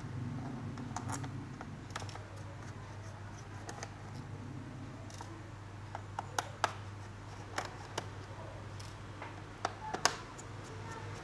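Scattered light clicks and taps of plastic parts and tools being handled while a laptop's case is opened, a few sharper clicks about two thirds of the way through and near the end, over a steady low hum.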